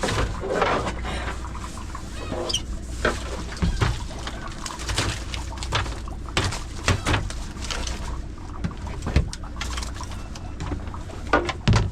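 Fishing boat's engine running with a steady low hum under irregular knocks and clatter from work on the deck, with a couple of short high squeaks.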